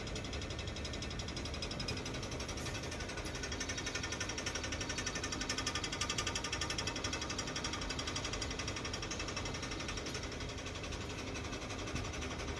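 Ship's machinery running, heard on deck as a steady, fast, even mechanical rattle that swells slightly in the middle.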